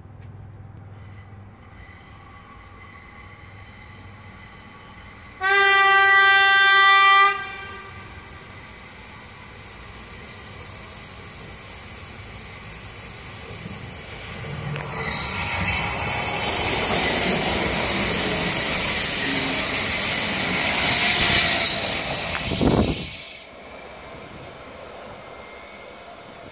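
PESA EN76 'Elf' electric multiple unit sounding its horn in one loud blast of about two seconds. A steady high whine follows as it approaches. Then comes the louder rush of the train running past for about eight seconds, which cuts off sharply.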